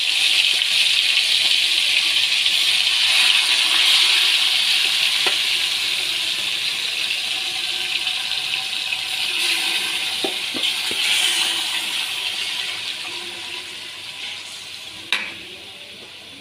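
Marinated chicken sizzling in hot oil in a steel kadhai, a loud hiss that fades steadily. A few light clicks, then one sharp knock near the end.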